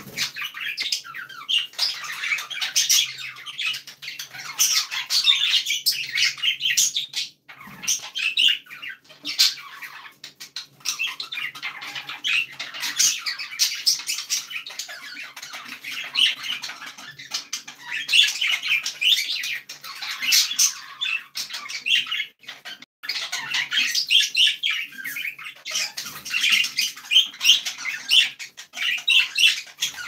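Budgerigars chattering and warbling, a busy, unbroken stream of quick high chirps and squawks with a few short pauses.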